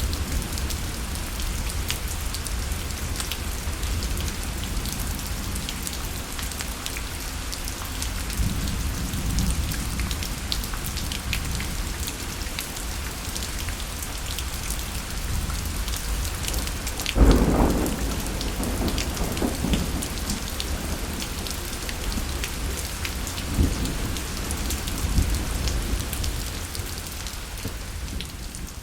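Steady rain falling, with the pattering of individual drops, under a low rolling rumble of thunder. A louder thunderclap comes a little past halfway and rumbles on for a few seconds, and smaller rumbles follow near the end.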